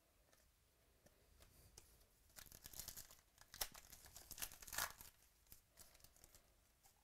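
Foil wrapper of a baseball card pack being torn open and crinkled. It gives a crackly tearing from about two and a half seconds in to about five seconds, with its loudest rips near the end of that stretch.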